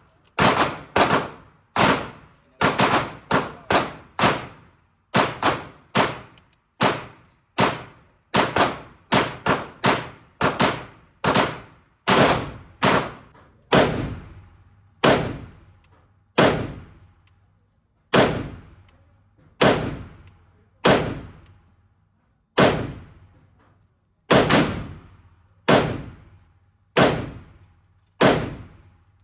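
AR pistol firing a string of single shots at about one a second, now and then two in quick succession. Each shot is sharp and echoes briefly.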